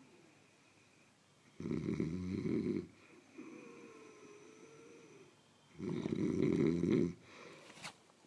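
Heavy snoring: two loud rattling snores, each about a second long and about four seconds apart, with quieter breathing between them that carries a faint whistle.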